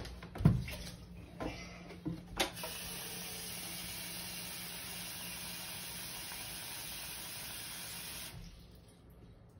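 A few thumps and knocks, then a bathroom sink faucet turned on about two and a half seconds in, running steadily into a metal pet water bowl to fill it, and shut off near the end.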